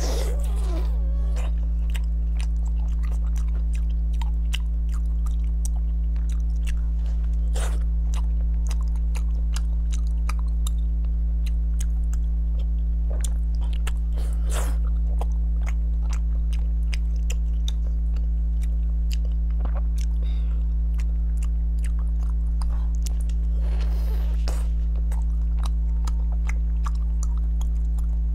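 Close-miked biting and chewing of crisp-crusted food, with a run of small crackly clicks and a few louder crunching bites. A loud, steady low electrical hum runs underneath.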